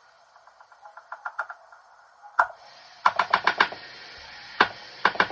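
A cooking utensil tapping and clicking against cookware in quick runs of sharp taps, with one louder knock about halfway through.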